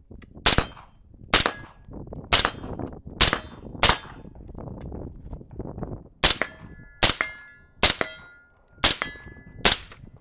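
AR-15 rifle chambered in 7.62x39 firing ten aimed single shots in two strings of five, about one a second, with a pause of about two seconds between the strings. A short metallic ring follows each shot of the second string.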